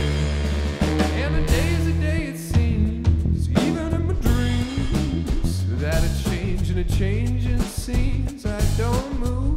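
Live funk jam band playing: drum kit, electric bass and electric guitar, with a saxophone in the line-up.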